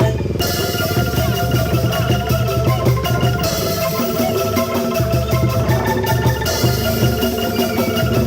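Angklung ensemble playing a tune: each note is a fast rattling tremolo of shaken, tuned bamboo tubes, over a pulsing low bass part.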